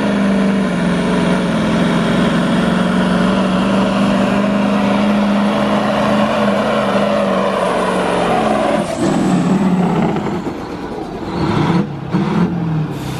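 Mack Superliner's V8 diesel running flat out under load as the semi pulls the weight sled, a steady heavy note. About nine seconds in the note breaks off, and the engine runs quieter and unevenly near the end.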